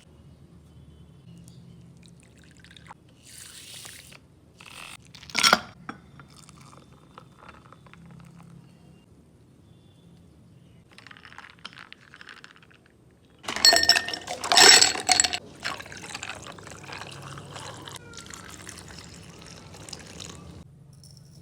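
Liquid being poured, a loud rush starting about two-thirds in and carrying on as a softer hiss for several seconds before stopping sharply. Earlier comes a single sharp clink, with light handling sounds around it.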